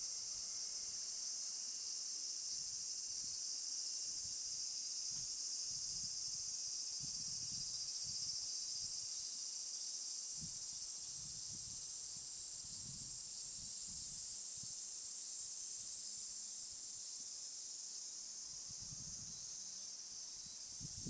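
Chorus of cicadas, a dense, steady, high-pitched shrill hiss, with soft irregular low thumps of footsteps on a path through the middle.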